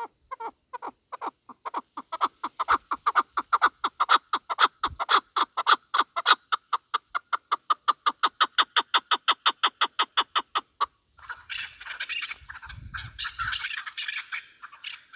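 Chukar partridge giving its rapid clucking 'chuk-chuk' call, a run of short notes that speed up to about six a second and stop abruptly about eleven seconds in. A rougher, raspier noise follows for the last few seconds.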